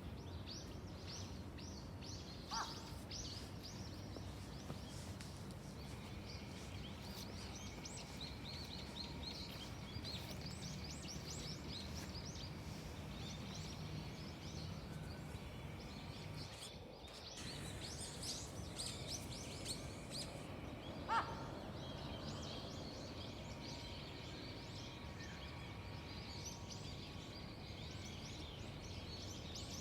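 Small songbirds chirping and twittering without a break, with two short, louder falling calls, one about three seconds in and one about twenty-one seconds in, over a steady low background rumble.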